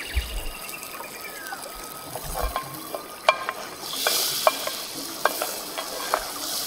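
Butter sizzling in hot oil in a cast iron skillet as a wooden spoon stirs and pushes it around, with a few sharp knocks of the spoon against the pan. The sizzle swells about four seconds in.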